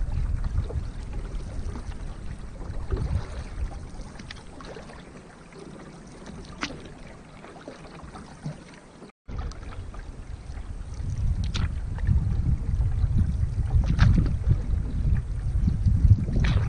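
Water lapping and splashing around a canoe as it is paddled, with wind rumbling on the microphone and a few sharp splashes or knocks. The sound drops out for a moment about nine seconds in, then the wind rumble comes back stronger.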